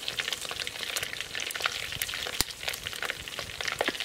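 Shrimp tempura deep-frying in a pot of hot oil: a steady, dense crackle of small pops, with one sharper pop about halfway through.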